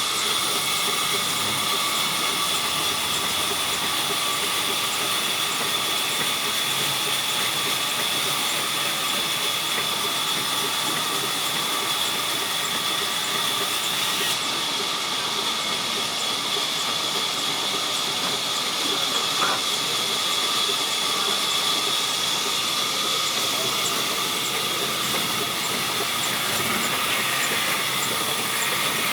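Sawmill saw running steadily, a continuous high whine over a hiss.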